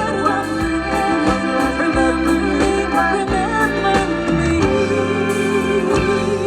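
A live band playing an instrumental passage, led by an organ-like keyboard sound over bass notes and regular drum strikes.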